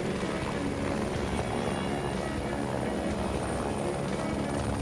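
Helicopter running steadily, its turbine and rotor giving a constant low drone with a fast regular beat.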